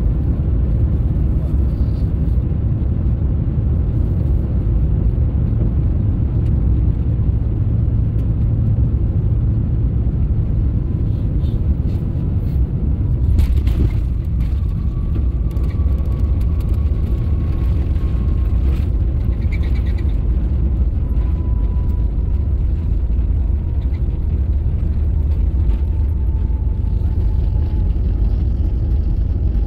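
Cabin noise of an Airbus A350-900 during the landing: a steady low rumble. A faint whine slowly falls in pitch over the second half, and a single brief knock comes about thirteen seconds in.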